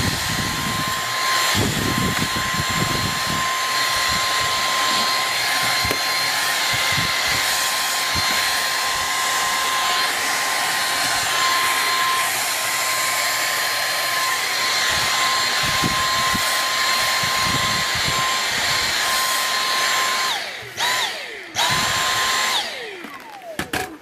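Dyson V6 Absolute cordless stick vacuum running steadily with its dusting brush, a high motor whine over the rush of air, with scattered low bumps as the brush works the desk. Near the end the trigger is released and the motor winds down in falling pitch. It is pulled on again for about a second, then released and winds down once more.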